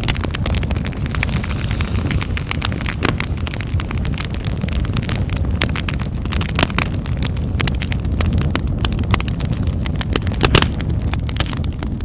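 Wood fire in a fireplace crackling, with many sharp irregular pops and snaps over a steady low rumble of the flames; a louder pop comes a little before the end.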